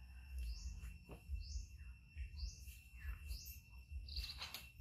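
A bird repeating a short rising chirp about once a second, over a steady high insect drone, with a brief louder high sound near the end.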